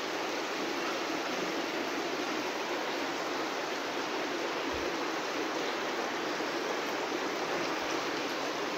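Steady, unbroken rushing noise with little bass, with a single soft low knock about five seconds in.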